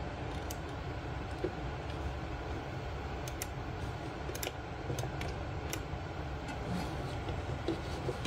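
Irregular sharp clicks from a 1986 Apple Macintosh Plus being worked through MacPaint's menus, closing one document and opening a new one, over a steady low hum.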